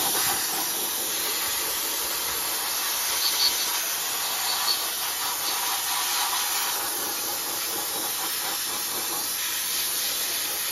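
Abrasive blasting gun running steadily in a blasting cabinet, a loud continuous hiss of compressed air and grit that starts suddenly, stripping rust and oil off a turbocharger turbine housing.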